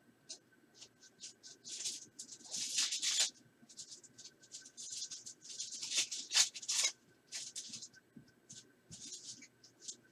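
Trading cards being handled and slid against one another, with a run of short, uneven scraping and rustling sounds, heaviest about two to three seconds in and again around six seconds.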